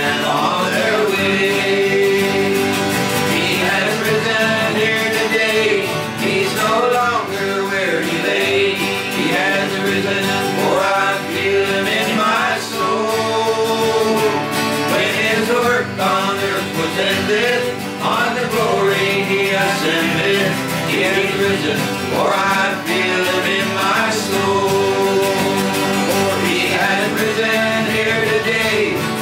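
Four acoustic guitars strummed together while several men sing a country gospel song in harmony.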